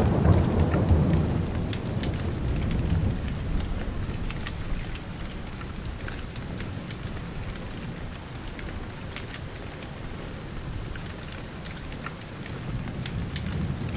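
Rain falling steadily, with scattered drop clicks. A low roll of thunder at the start dies away over the first few seconds.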